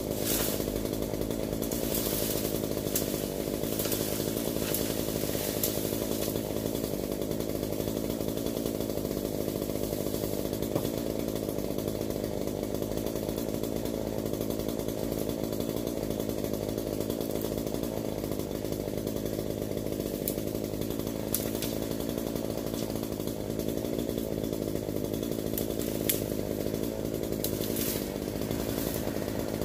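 Small two-stroke gas chainsaw on a long pole, running steadily as it cuts up in the branches of a crepe myrtle, with a few sharp snaps.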